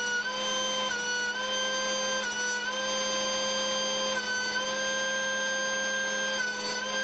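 DeWalt two-speed benchtop thickness planer running with a loud, steady high-pitched motor whine. Its pitch drops and recovers several times as short hardwood boards pass through the cutterhead under load.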